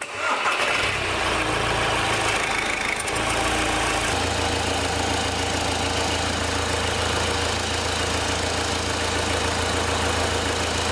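Four-cylinder diesel engine running at idle. It cuts in suddenly at the start and settles to a steadier low note after about four seconds.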